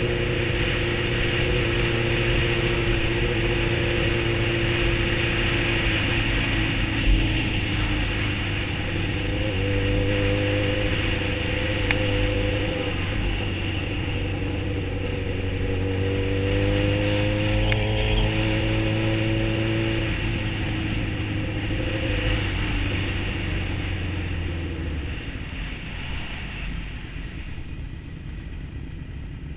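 Sportbike engine running under way, its pitch rising and falling with the throttle, over wind and road noise. A brief knock comes about seven seconds in. Near the end the engine eases off and the sound drops as the bike slows.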